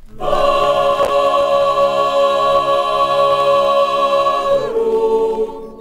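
Choir singing a loud sustained chord without accompaniment, held steady for about four and a half seconds, then dropping to a lower, quieter chord that fades out near the end.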